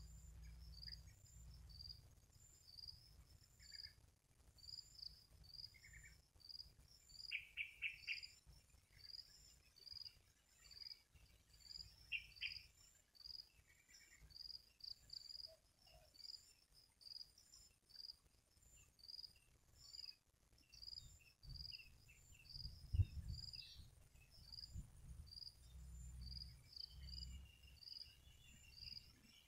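Insects in a rice paddy at dusk chirping steadily, one high chirp about every two-thirds of a second, with a few short bird calls about a quarter and two-fifths of the way in. A faint low rumble underneath swells in the later part.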